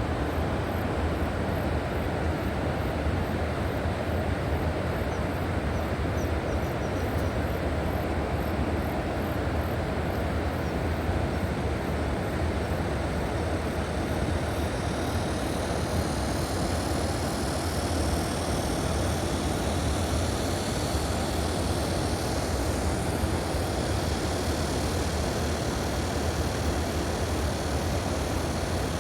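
River water rushing steadily, a continuous deep rumbling wash with no pauses; a brighter hiss joins about halfway through.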